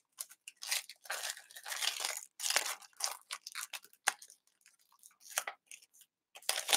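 Thin clear plastic bag crinkling and rustling in bursts as it is pulled off a wooden jigsaw puzzle board, with one sharp click about four seconds in.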